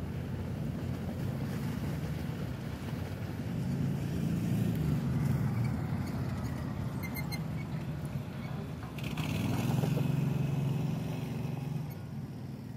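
Outdoor street noise: a low rumble of passing traffic that swells twice, with a quick run of short high-pitched chirps about seven seconds in.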